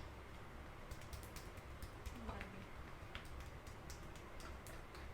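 Head massage with fingers working through the hair, giving faint, irregular small clicks and crackles (hair cracking).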